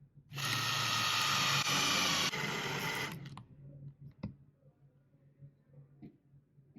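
Cordless drill running for about three seconds, then stopping, followed by a few faint clicks.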